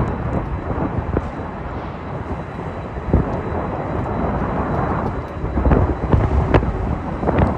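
Low, rumbling jet aircraft noise mixed with gusty wind buffeting the microphone, swelling and falling irregularly.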